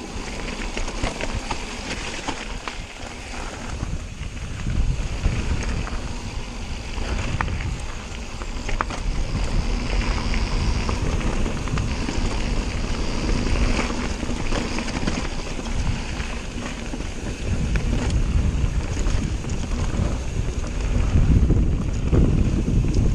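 Wind buffeting the camera microphone over the crunch and rumble of tyres on a rough gravel trail, with rattles and knocks from a Cotic Flare mountain bike descending at speed. The rumbling grows heavier in the last few seconds.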